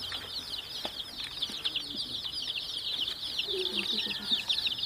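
A crowd of baby chicks peeping continuously: many overlapping short, high-pitched cheeps.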